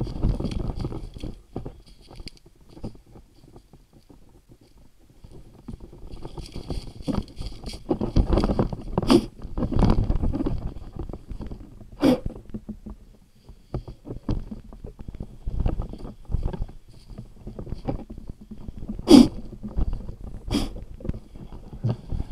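Footsteps and rustling through leaf litter and undergrowth, with rubbing and bumping noise from the moving camera and a few sharp knocks.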